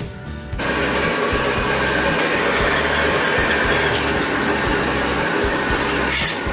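High-pressure gas wok burner running with a steady rushing roar under a stir-fry of green vegetables, cutting in suddenly about half a second in.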